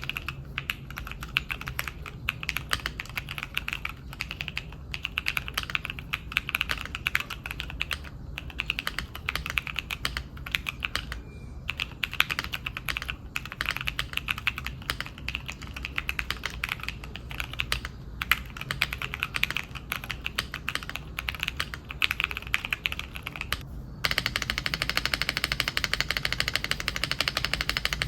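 Typing on a Neo65 custom gasket-mount mechanical keyboard with PBT keycaps: a steady stream of irregular keystroke clicks. About 24 s in, the keystrokes turn into a faster, denser continuous rattle.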